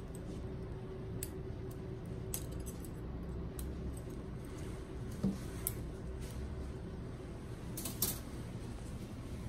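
Stainless steel surgical instruments (ring-handled clamps and hemostats) clicking and clinking as they are handled and set into a wire-mesh instrument tray, with a few sharper clinks about halfway through and near the end.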